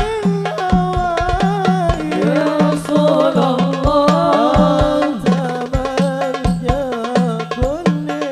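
Sholawat (Islamic devotional song) sung by voices over hadroh frame drums (rebana) beating a steady rhythm. Several voices join in near the middle.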